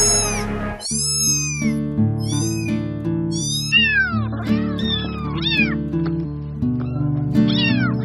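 Kittens mewing in a string of short, very high-pitched calls, then lower, falling meows from about halfway through and again near the end. Background music with steady low notes plays underneath.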